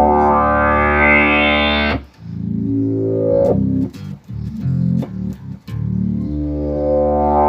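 Bass guitar played through an Electro-Harmonix Bass MicroSynth pedal, working again after repair, giving synth-like bass tones. A long note whose filter sweeps upward stops about two seconds in; a few short, choppy notes follow, then another long note with a rising filter sweep near the end.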